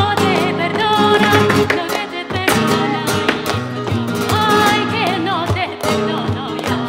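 Live flamenco tangos: a woman's voice sings a wavering, ornamented line over two flamenco guitars. Sharp palmas hand-claps and the dancer's heel strikes run through it.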